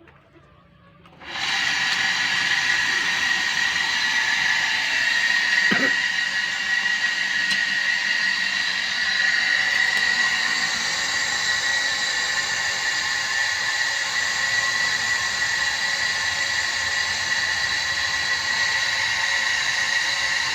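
Electric motor of a dowel-making machine starting about a second in and running steadily, with a constant high whine.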